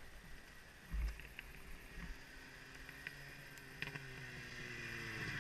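Snowmobile engine running and approaching, faint at first and growing louder over the second half. A low thump about a second in.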